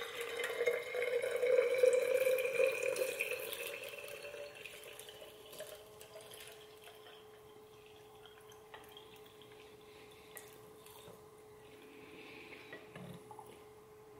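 Bone broth poured from a stainless steel saucepan into a glass jar. The pitch rises as the jar fills, then over the next few seconds the pour thins to a faint trickle and drips.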